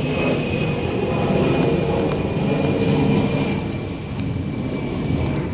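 Airplane going by, loud: a steady rumble with a thin high whine that slowly drops in pitch.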